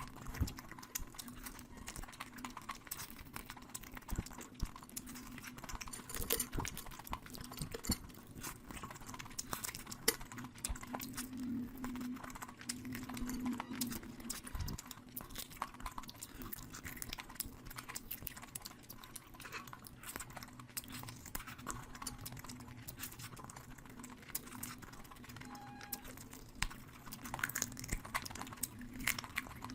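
Close-miked eating sounds of a person chewing rice and curry: a steady run of small wet clicks and smacks from the mouth.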